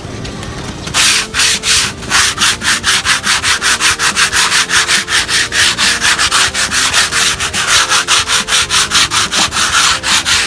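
Grit-100 sandpaper rubbed by hand over the rough textured coating of a plywood speaker cabinet in quick back-and-forth strokes, about four or five a second. It starts about a second in and stops suddenly near the end: the coat is being sanded down before the next coat.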